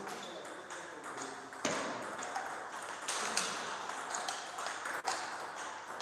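Table tennis ball clicking: a few sharp, irregularly spaced taps of the ball bouncing on a table and off a paddle.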